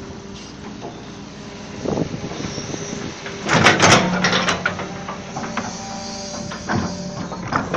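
Excavator's diesel engine running steadily under load while the machine works its way out of deep mud, with clanks and knocks from the tracks and boom: a loud cluster of knocks about halfway through and more near the end.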